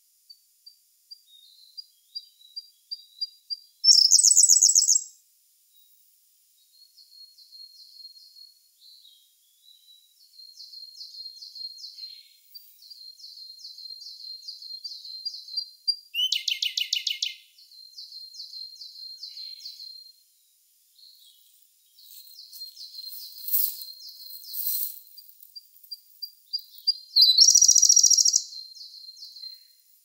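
Siberian blue robin singing: series of soft, quick, high ticking notes building into a loud, rapid trill, three times over.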